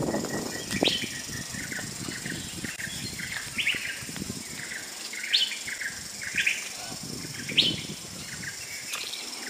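Birds chirping in forest: short, high chirps repeated about once a second.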